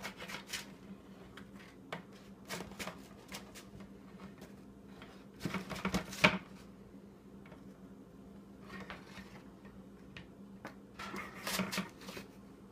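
Spatula scraping and clicking against a metal baking sheet as cookies are lifted off, in short bursts that are loudest about six seconds in. A faint steady low hum runs underneath.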